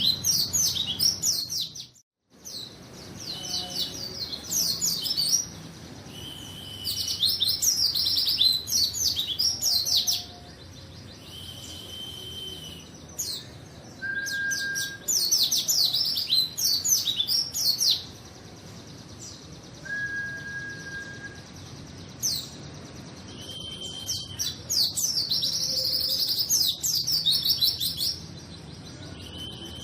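White-eye (pleci) singing in rapid, high twittering phrases a second or two long, with short gaps between and a few single steady whistled notes. The sound cuts out briefly about two seconds in.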